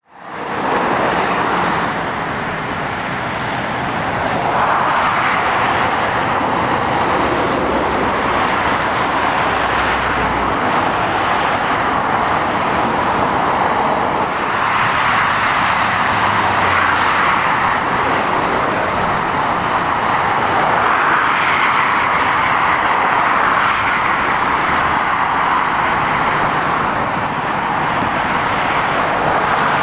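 Steady road traffic noise from cars and lorries, mostly tyre roar, swelling several times as vehicles pass close by.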